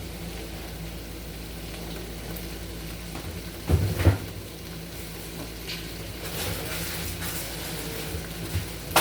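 Food sizzling in a pan on the stove, a steady hiss with a low hum underneath. Two short knocks, one about four seconds in and another near the end.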